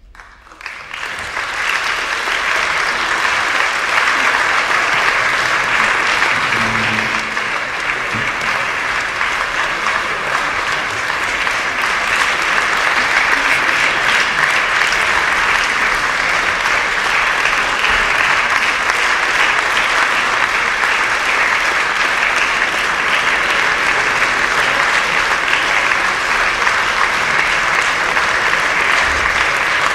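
Audience applauding, rising out of near silence within about two seconds of the start and then holding steady.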